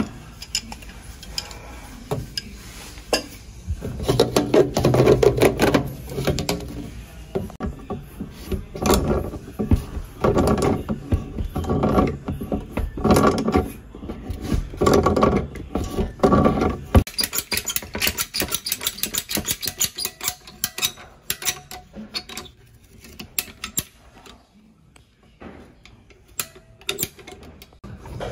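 Tongue-and-groove pliers working seized hose couplings off corroded washer-box valves: metal-on-metal scraping, clicking and clanking in a long run of short bursts.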